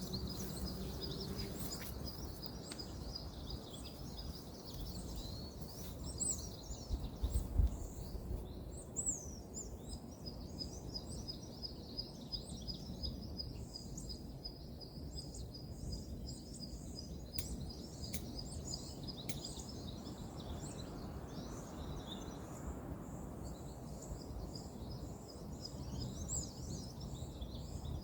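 Birds chirping, with a fast, evenly repeated high chirping through most of the stretch, over a steady low rumble of distant road traffic. A few faint clicks fall near the middle.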